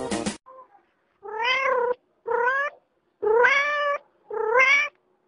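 A domestic cat meows four times in a row after music cuts off just after the start. Each meow lasts about half a second to a second and rises in pitch before levelling off.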